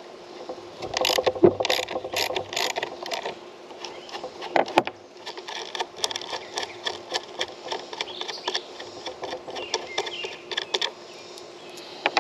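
Hand work fitting bolts into a plywood board: scattered clicks, taps and knocks of metal on wood. The loudest knocks come about a second and a half in and again near five seconds, with a run of small ticks later on, over a steady faint hum.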